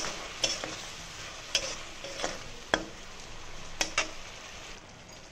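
Steel spatula stirring a mustard-and-chilli paste in a hot kadai: several sharp scrapes and knocks of the spatula against the pan, over a low sizzle of the paste in oil.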